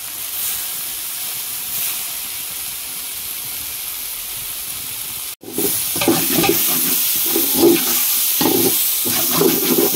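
Onion-tomato masala sizzling in a large metal pot, a steady hiss. After a brief break about halfway, a metal ladle scrapes and stirs the mixture against the pot in repeated strokes.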